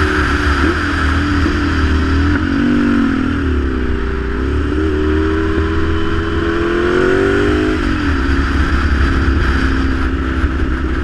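Ducati Monster 696's air-cooled L-twin engine pulling the bike through bends. Its note dips and rises, then climbs steadily for a few seconds before dropping sharply about eight seconds in. A steady rush and low rumble of wind on the microphone lie under it.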